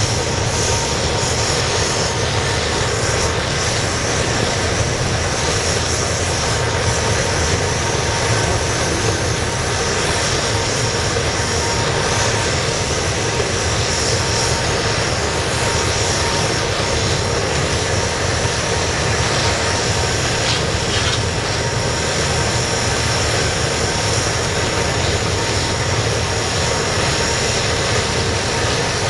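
Air-atomized waste-oil burner firing a scrapping furnace: a constant, even rushing roar of the forced flame, with a faint steady tone near 1 kHz.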